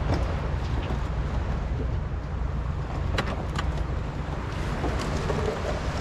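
Small fishing boat's engine running steadily, with wind on the microphone and a few light knocks about three seconds in.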